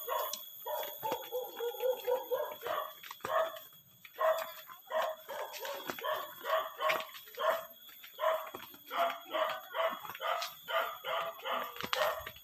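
An animal calling over and over, about two to three short calls a second, with brief pauses around four and eight seconds in.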